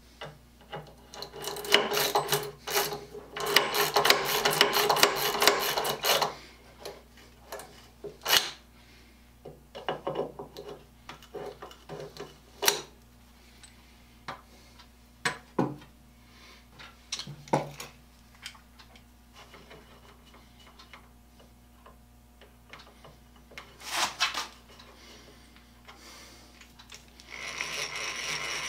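A spiral-ratchet push tool pumped into wood, a dense rasping, ratcheting run of about four seconds, followed by scattered clicks and knocks of tools on the bench. Near the end a hand-cranked eggbeater drill starts boring into the board, its gears whirring steadily.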